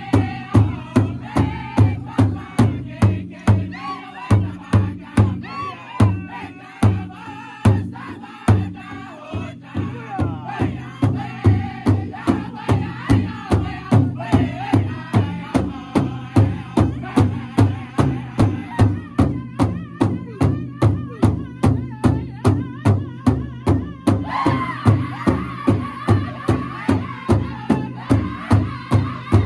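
Powwow drum group beating one large shared drum in unison with a steady pulse of about two and a half strokes a second, while the singers chant together over it. The beats go softer for a few seconds early on, and about three quarters of the way through the voices rise to a loud, high pitch.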